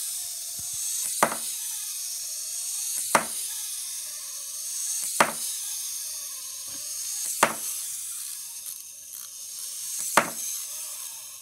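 Clockwork wind-up toy cat whirring as its spring runs down, with a sharp clack on the wooden table each time it flips over and lands. There are five clacks, each gap a little longer than the last as the spring slows.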